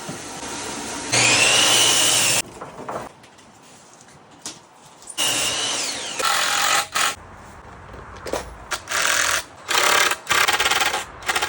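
Handheld power drill run in several short bursts with pauses between, its motor whine rising and falling in pitch; the last bursts carry a fast, even rattle.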